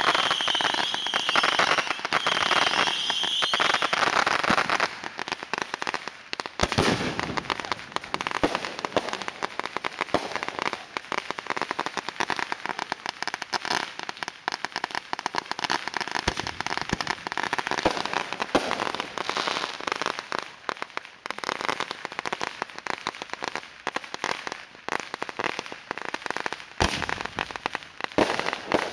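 Consumer fireworks: a long run of firecrackers popping rapidly and without let-up. A high whistle sounds over the popping in the first few seconds, and louder single bangs come about seven seconds in and again near the end.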